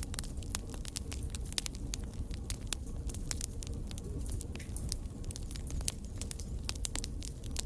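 Wood fire crackling in a fireplace: many sharp irregular pops and snaps over a steady low rumble of the flames.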